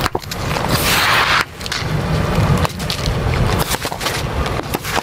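A pickup truck's tyre rolling over a row of foil juice pouches, bursting them and spraying juice, over the low rumble of the truck. A hissing spray is loudest in the first second and a half, and the sound breaks off abruptly and restarts about one and a half seconds in.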